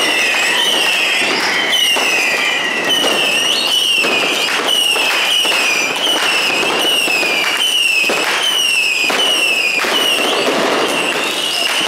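Fireworks and firecrackers cracking and banging without a break in the street. Over them, a high tone falls in pitch and repeats about one and a half times a second, like an alarm.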